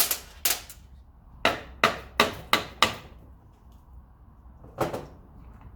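Hammer taps in a workshop: about eight sharp knocks at uneven spacing, most in a quick run during the first three seconds and one more near the end.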